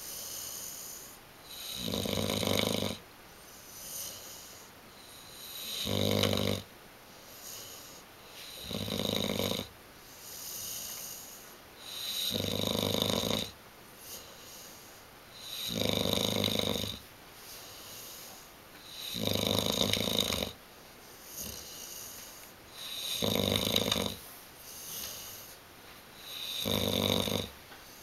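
Young bullmastiff-boxer mix dog snoring in its sleep: a loud snore about every three and a half seconds, with a softer breath between each.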